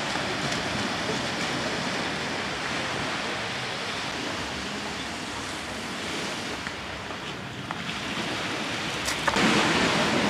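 Sea waves washing onto the beach: a steady hiss that swells louder for about a second near the end.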